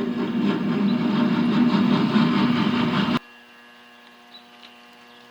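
Metal lathe drilling steel bar stock with a 37/64 inch drill bit fed from the tailstock: a loud rough cutting noise over the machine's steady hum. The cutting stops abruptly about three seconds in, leaving the lathe's quieter steady hum.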